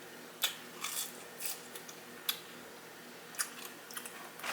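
Close-miked chewing of crispy french fries: about half a dozen short, sharp crunches and mouth clicks at irregular intervals.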